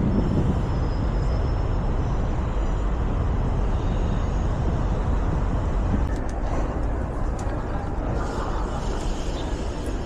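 Steady city street noise dominated by a low rumble of road traffic, with a few faint clicks in the second half.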